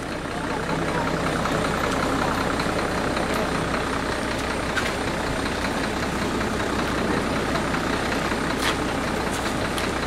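Tour bus engine idling steadily close by.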